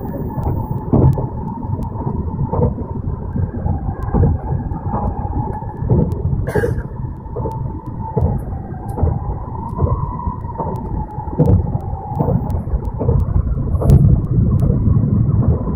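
Cabin noise of an N700 series Shinkansen bullet train running: a loud, dense low rumble with irregular knocks and a whine around 1 kHz that wavers up and down in pitch.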